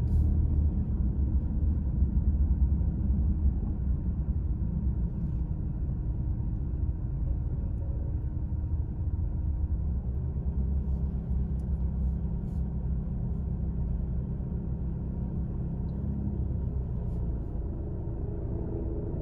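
A car driving in city traffic, a steady low rumble of engine and road noise.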